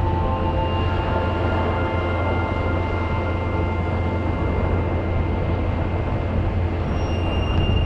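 Strong wind buffeting the microphone, a steady low rumble with a rushing hiss over it. Faint held tones sound above it, starting and stopping.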